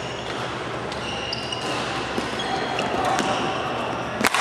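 Badminton rally: shoes squeaking briefly on the court floor and sharp clicks of racket hitting shuttlecock, the loudest hit near the end, against the steady hum of a hall.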